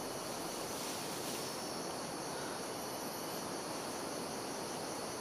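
Steady, high-pitched drone of rainforest insects.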